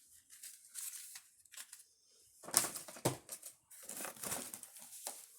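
Fireworks packaging crinkling and rustling in irregular bursts as it is handled, loudest a little past halfway.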